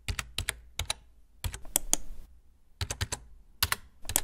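Typing on a computer keyboard: quick, irregular keystroke clicks in two runs, with a brief pause a little after two seconds in.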